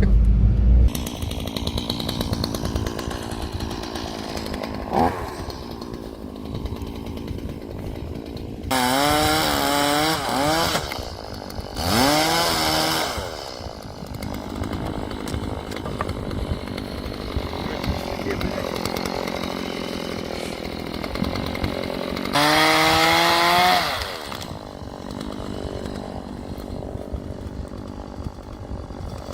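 Vehicle engine running, revved up hard three times, each rev rising and falling in pitch over a second or two.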